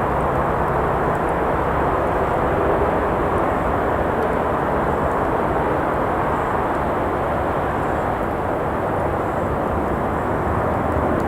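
Steady roar of traffic from a nearby road, even and unbroken, with a few faint crackles from the campfire.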